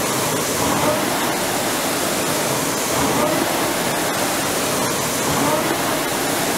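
Concept2 indoor rower's air-resistance flywheel fan whooshing under steady rowing. The rush of air swells once per stroke, about every two and a half seconds, at around 25 strokes a minute.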